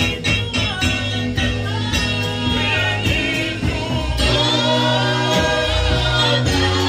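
Live praise-and-worship gospel music: singers on microphones, several voices together, over instrumental backing with steady bass notes and a beat.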